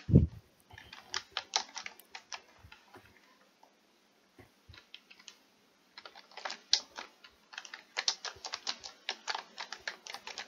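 Typing on a computer keyboard in quick runs of keystrokes, with a sparse pause of about two seconds in the middle. A single low thump comes right at the start.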